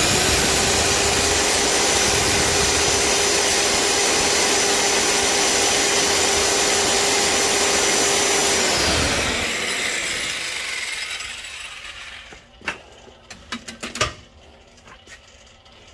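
Steady abrasive rushing of a belt polishing a big-block Mopar camshaft's bearing journal while the machine runs with a steady whine. About nine seconds in, the motor is switched off and its whine slides down as it coasts to a stop, and the grinding fades out. A few light knocks and clicks follow near the end.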